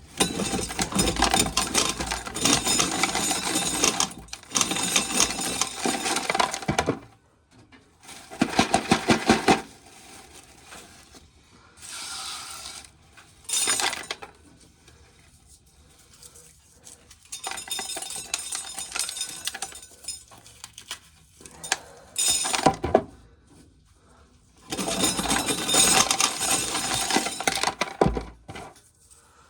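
Dried corn kernels being shelled off the cob and rattling down into a container, in several bursts a few seconds long with short pauses between them.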